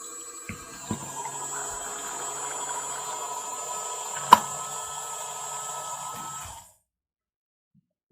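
Small battery motor of a toy washing machine running with a steady whine and hum, with a few light clicks and one sharp click about four seconds in; it stops suddenly near the end.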